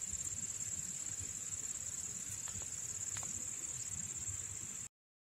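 Crickets chirring in one steady high-pitched trill, with a faint low rumble beneath; it cuts off suddenly near the end.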